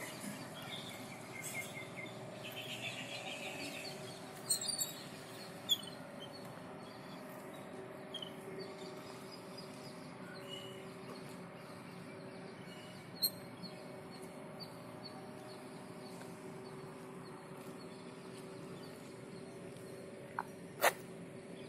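Outdoor ambience of scattered bird chirps over a faint steady hum, with a few sharp clicks, the loudest near the end.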